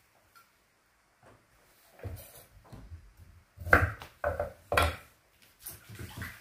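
Kitchen knife cutting deodeok root on a thick wooden cutting board: a run of dull knocks starting about two seconds in, the loudest near the middle.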